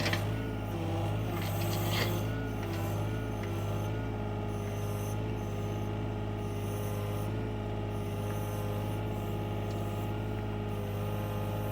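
Excavator's diesel engine running, its pitch wavering under changing load for the first few seconds and then holding steady. A couple of short knocks sound near the start.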